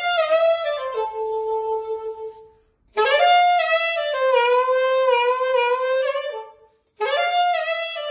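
Solo saxophone playing a melody in three short phrases, with a brief pause of silence before the second and before the third.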